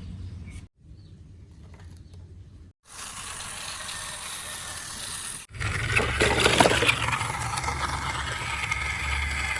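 Radio-controlled toy construction vehicle's small electric motor and gears whirring, with plastic rattling and scraping, heard in short cut-together segments. The sound is loudest from about five and a half seconds in, with a steady motor whine and a burst of clatter soon after.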